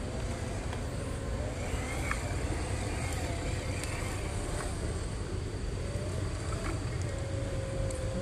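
Electric motor and gearbox of a WPL C24 1/12-scale RC crawler whining, the pitch rising and falling with the throttle as it crawls over rocks, with a few sharp clicks over a steady low rumble.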